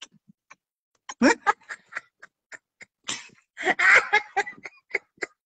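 Laughter in short, choppy bursts, growing fuller and more continuous about three seconds in.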